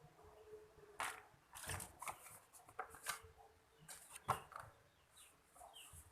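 Hands handling a small plastic lure pack and soft plastic bait: a run of light rustles and clicks, the sharpest about four seconds in. A bird chirps faintly and repeatedly in the background.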